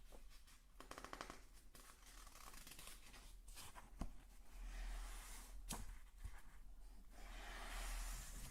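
ASMR trigger sounds made close to the microphone: soft scratching and rustling that swells up twice, a quick rattling run of fine clicks about a second in, and a couple of sharp single taps.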